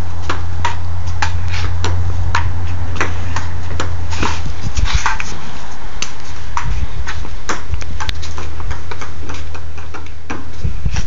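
Ping pong ball clicking off paddles and the table in an irregular back-and-forth warm-up rally, about two sharp hits a second, over a steady low hum.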